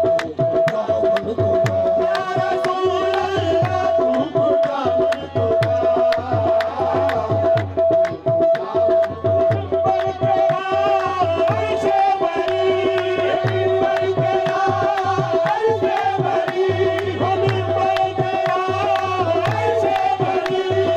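Live qawwali: tabla playing a quick steady rhythm under a held harmonium note, with a singer's voice joining about two seconds in.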